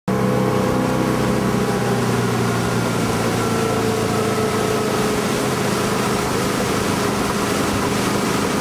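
Tow boat's engine running steadily under load at towing speed, a constant drone, mixed with the rush of water and air.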